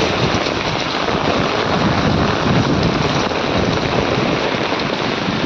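Heavy rain pouring steadily, with wind buffeting the microphone.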